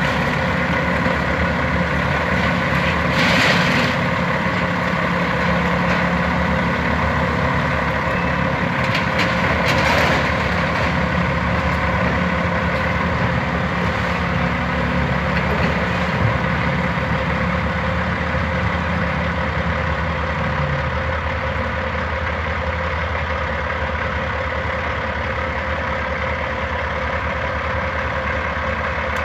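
Heavy diesel engines running steadily: a semi truck idling and a Hitachi Zaxis 270 excavator working as it swings its bucket over the truck's container. Two brief crashes sound about three and a half and ten seconds in, and a low engine note drops away about two-thirds of the way through.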